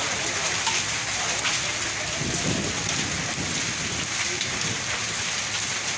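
Heavy rain pouring onto a wet road and open ground: a steady, dense hiss of falling water.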